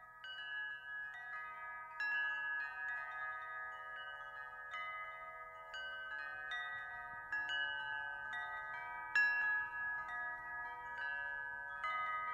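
Wind chimes ringing: irregular, overlapping strikes of metallic bell-like notes that sustain and blend into one another.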